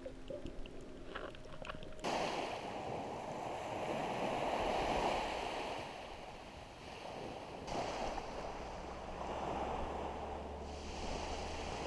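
Ocean surf: waves rushing in, swelling and fading, with abrupt changes about two and eight seconds in.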